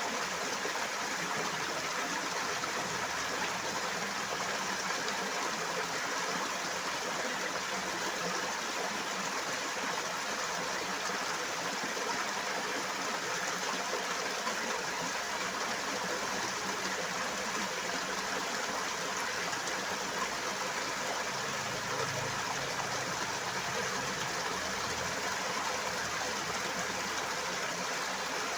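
Rushing water, a steady, even rush with no breaks.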